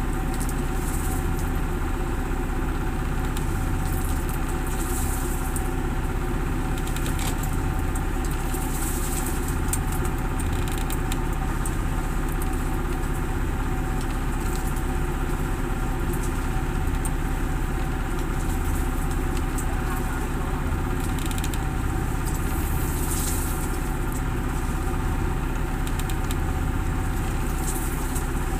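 A boat's engine running steadily.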